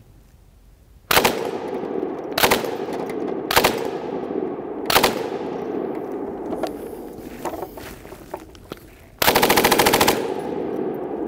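UK vz.59 belt-fed machine gun in 7.62x54mmR firing full-auto. It fires four short bursts about a second apart, then a longer burst of about a second near the end, each followed by echo.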